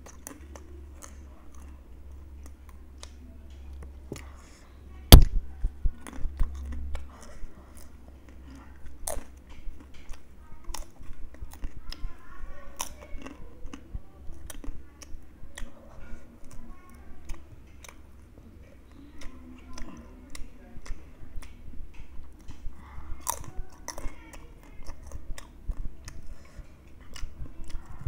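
Chewing and crunching of crisp, spiced ring-shaped fried chips: a run of sharp crunches with one loud bite about five seconds in, over a low steady hum.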